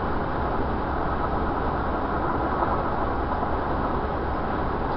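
Steady road and engine noise inside a car's cabin while driving.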